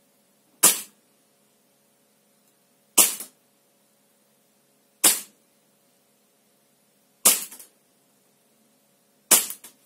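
Tokyo Marui Hi-Capa 5.1 gas blowback airsoft pistol firing five single shots about two seconds apart, each a sharp pop that dies away quickly.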